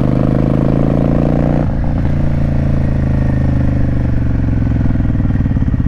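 Kawasaki Vulcan VN750 V-twin motorcycle engine running under way. Its pitch climbs slightly, breaks off briefly a little under two seconds in, then carries on lower and slowly falling.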